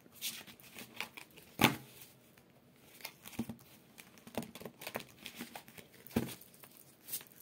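A deck of oracle cards being shuffled by hand: irregular soft slaps and rustles of the cards, the loudest about one and a half seconds in and another near six seconds.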